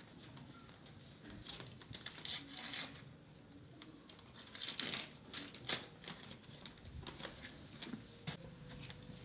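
Irregular crinkling and rustling with scattered sharp clicks; the loudest is a single sharp click a little past the middle.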